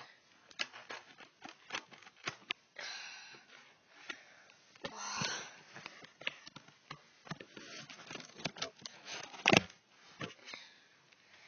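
Small scissors cutting the packing tape on a cardboard shipping box: scattered clicks and snips with a few short scraping, tearing rustles, and one sharp knock about nine and a half seconds in.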